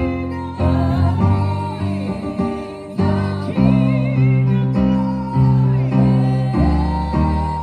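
Church worship music: singing with vibrato over guitar and sustained bass notes that change about once a second.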